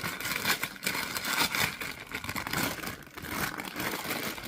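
Sweet wrappers and packaging crinkling and rustling as they are handled and packed, a steady run of quick, irregular crackles.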